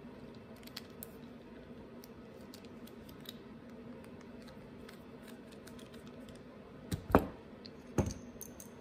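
Screwdriver turning screws out of a small-engine carburetor: faint metallic clicks and ticks, then two louder sharp knocks about seven and eight seconds in.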